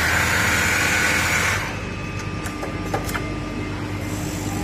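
Richpeace automatic single-head template sewing machine running and stitching. A higher whine lasts about the first second and a half, then the machine settles to a lower steady hum, with a few light clicks.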